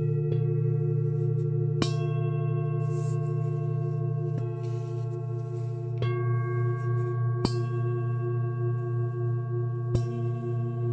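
Metal singing bowls struck five times, a couple of seconds apart, each strike adding fresh ringing overtones over a deep, pulsing hum that sustains throughout.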